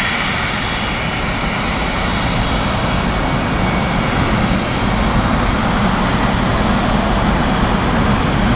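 Boeing 777F freighter's twin GE90 turbofans at taxi power as the jet rolls slowly past: a steady jet rumble and hiss with a faint whine, swelling slightly about five seconds in.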